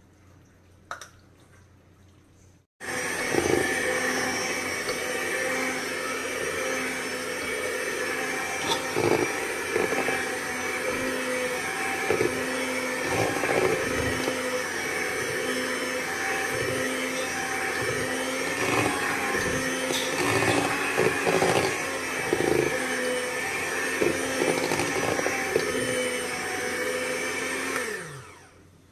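Electric hand mixer switching on about three seconds in and running steadily with its twin beaters in thick chocolate cake batter, the beaters knocking against the bowl now and then; near the end the motor winds down and stops.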